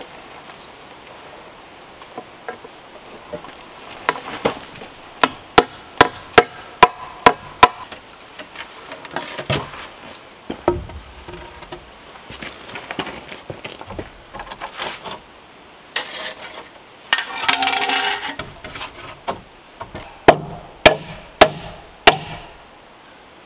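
Hammer blows on timber: a run of about six sharp knocks, then later four more, with softer knocks and a brief scraping rattle between them.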